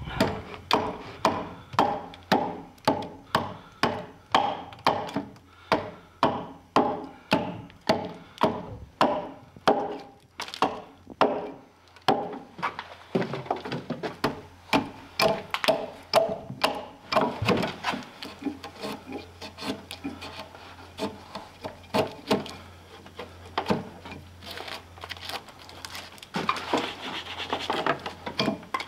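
Axe chopping into a log at a round-log corner notch, about two sharp blows a second, turning into quicker, lighter and less regular cuts after about twelve seconds. Near the end comes a scraping sound of a knife shaving the wood in the notch.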